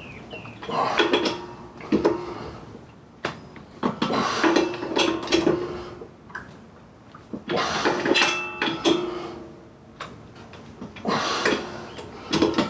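Metal tools clanking and ringing in four short bursts a few seconds apart: a lug wrench and socket working the wheel's lug nuts for a final tightening.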